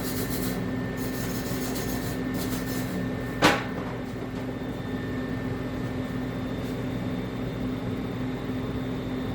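A steady electric hum from the MIG welder runs throughout. Short hissing bursts come in the first three seconds, then one sharp clank about three and a half seconds in.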